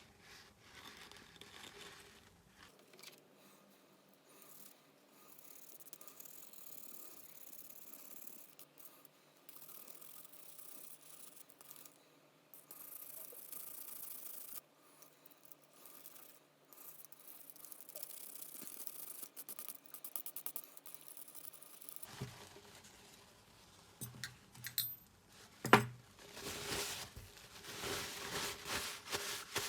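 Faint, irregular scraping and rustling of small hand tools working a metal part, with one sharp tap near the end.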